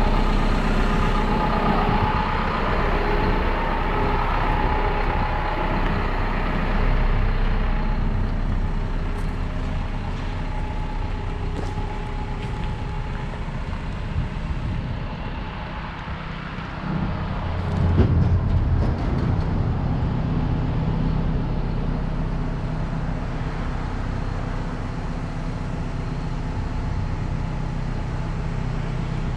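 2016 Isuzu NRR box truck's four-cylinder turbodiesel idling steadily, with a brief louder low rumble about 18 seconds in.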